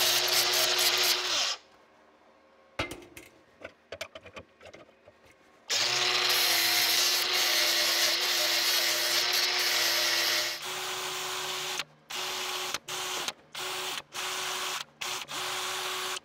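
Angle grinder grinding down the welds on the top of a bundle of steel rods: it runs for about a second and a half, stops amid a few light clicks, then grinds steadily for about five seconds. After that a cordless drill with a wire brush wheel runs in a series of short bursts, started and stopped repeatedly.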